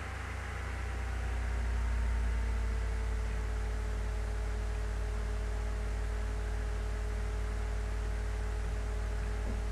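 Steady low machine hum, with a few faint steady tones above it.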